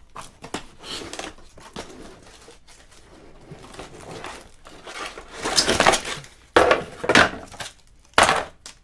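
Tape being cut on a cardboard box and the box handled: scattered scrapes and clicks, then several short, louder rustling scrapes and knocks of cardboard in the second half.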